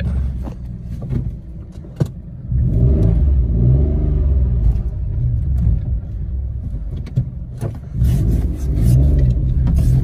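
Citroen C1 engine running, a steady low rumble that rises and falls in level, with a single sharp click about two seconds in.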